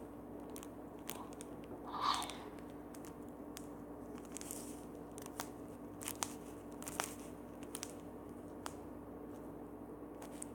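Scattered small crackles and clicks as a homemade stress ball is squeezed and handled, with a brief louder rustle about two seconds in, over a faint steady hum.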